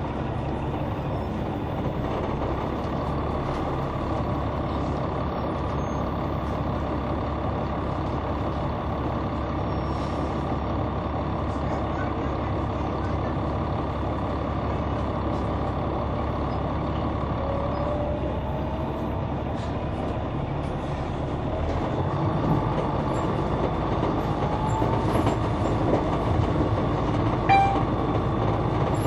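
Caterpillar C9 diesel engine and ZF automatic transmission of an articulated Neoplan transit bus, heard from on board while the bus drives. The engine note shifts about two-thirds of the way through and grows louder, with rising whines, and there is one brief sharp sound near the end.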